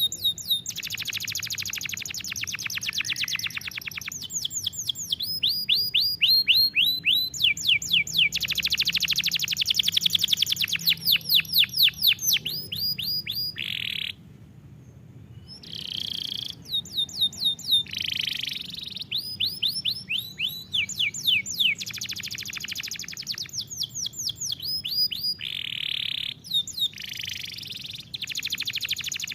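Domestic canary singing: long fast trills and runs of repeated sweeping high notes, with a short break about halfway through before the song resumes.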